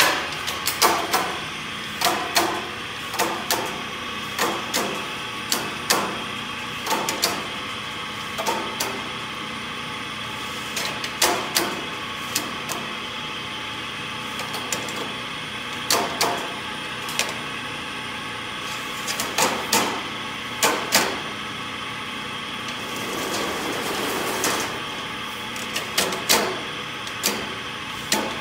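A wide steel band-saw blade clanking and knocking at irregular intervals as it is worked through a tensioning (stretcher) roll, over a steady machine hum.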